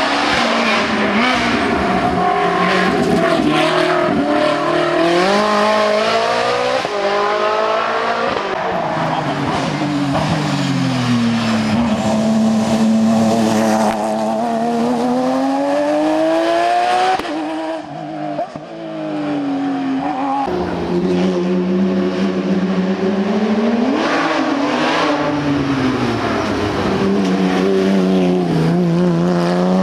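Hill-climb racing car engine at full throttle, its pitch climbing and dropping again and again as it goes through the gears. The level drops briefly a little past halfway, then the engine picks up again.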